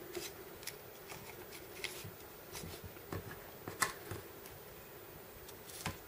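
Faint, scattered small clicks and scrapes of tools being slid and snapped into the slots of a Victorinox Swiss Card Classic's plastic body, over a faint steady hum.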